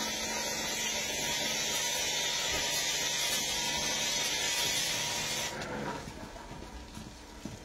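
Pressure-washer foam cannon spraying snow foam onto a truck cab: a steady, loud hiss that cuts off about five and a half seconds in.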